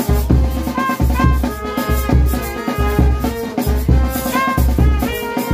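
Brass band playing a cumbia: a brass melody with short sliding notes over a steady bass drum and shaker-and-drum percussion beat.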